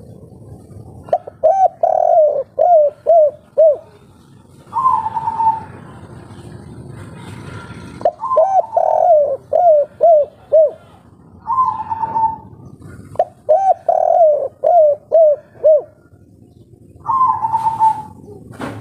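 Spotted dove cooing: three runs of six or seven quick, rolling coos, each followed by a single longer, higher coo. A sharp click comes near the end.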